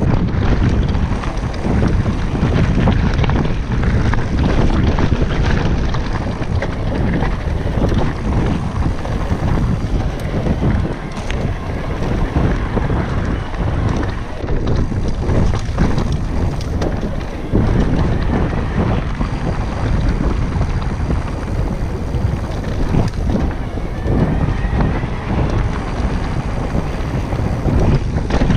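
Wind buffeting the microphone of a camera on a moving mountain bike, over the rumble of knobby tyres on a loose gravel track and frequent knocks and rattles of the bike over bumps.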